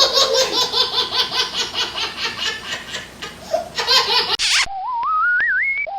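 Laughter, a rapid run of ha-ha pulses lasting about four seconds, then a rising, wavering whistle near the end.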